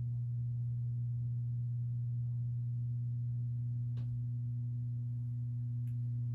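Steady low electrical hum, one unbroken droning tone with a weaker overtone above it, with a faint click about four seconds in.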